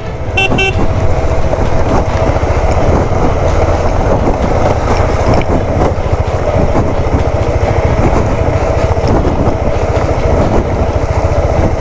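Motorcycle engine running steadily while riding, heard as a dense, continuous drone with road and wind noise. A short high beep sounds about half a second in.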